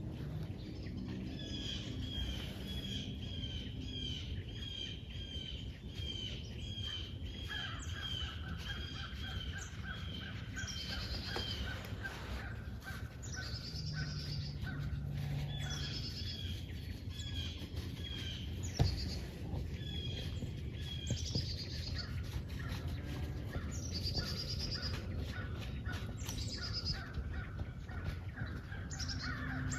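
Wild birds calling: runs of quick, evenly repeated chirps, with higher wavering calls every few seconds, over a low steady rumble. A single sharp click sounds about two-thirds of the way through.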